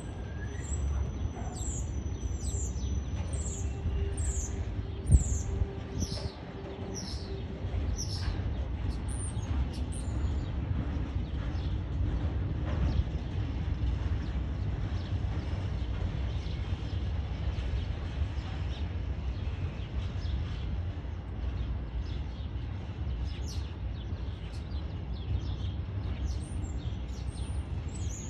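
Container wagons of a freight train rolling past, a steady low rumble, with one sharp knock about five seconds in. Birds chirp over it, most in the first ten seconds and again near the end.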